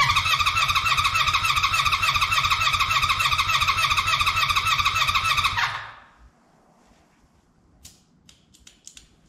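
Honda 400/4 inline-four being cranked over on its electric starter with a spark plug out and a compression gauge fitted, for a compression test: a steady starter whine with a regular pulsing beat from the compression strokes, no firing, stopping suddenly a little over halfway through. A few faint clicks follow near the end.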